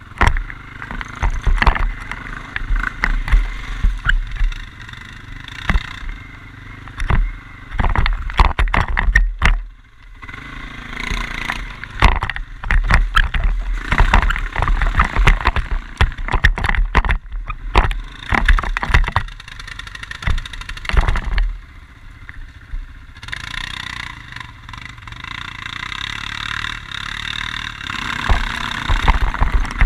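Quad bike (ATV) running over rough ground, with frequent knocks and clatter.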